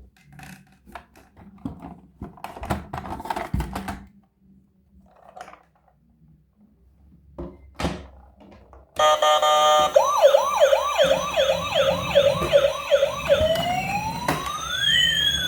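A few clicks and knocks, then about nine seconds in a toy police car's electronic siren starts abruptly and loudly: a fast yelp of about two sweeps a second, changing near the end to a slower rising and falling wail.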